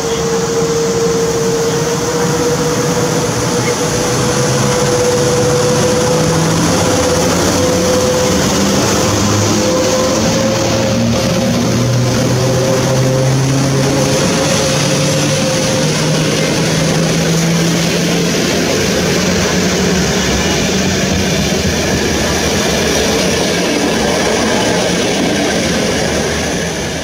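PKP Intercity EP09 electric locomotive and its passenger coaches pulling slowly away from a station stop. There is a steady loud rolling of wheels on the rails, and a motor whine rises slowly in pitch as the train gathers speed, fading out about two-thirds of the way through while the coaches roll past.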